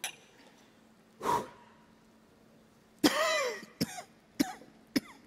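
A man coughing and clearing his throat in reaction to a drink he has just swallowed. There is one longer strained cough about three seconds in, then a few short coughs.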